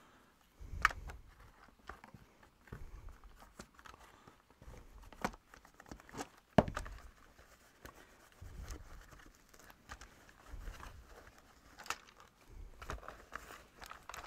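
Cloth rubbing and rustling over the plastic parts of a Dyson V10 Animal cordless vacuum while it is wiped clean, with irregular sharp clicks and knocks of plastic being handled. The loudest knock comes about six and a half seconds in.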